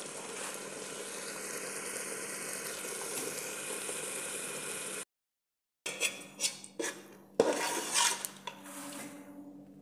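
Masoor dal with potatoes simmering in a metal pot over a gas burner, a steady hiss with a low hum under it. Just past halfway the sound cuts out for under a second. Then a spoon scrapes and knocks against the pot as the dal is stirred, a few separate clicks and scrapes.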